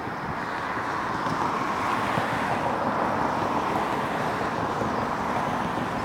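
Jet airliner passing, its engine noise a steady rush that swells over the first two seconds and then eases slightly.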